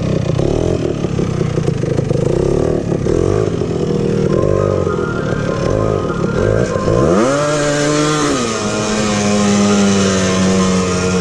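Honda TRX250R's single-cylinder two-stroke engine revving, its pitch rising and falling repeatedly, then climbing about two-thirds of the way in and holding a steady higher pitch.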